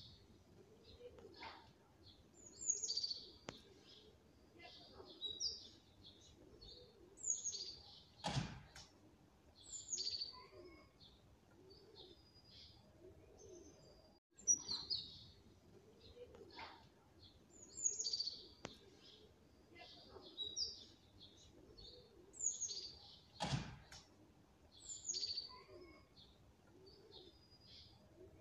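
Small birds chirping: short, high, falling chirps every second or two, with a sharp knock twice.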